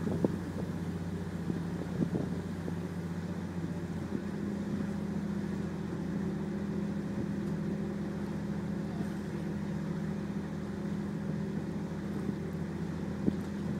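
Harbour ferry's diesel engine running steadily under way, a low even drone that does not change pitch, with a faint hiss of wind and water over it.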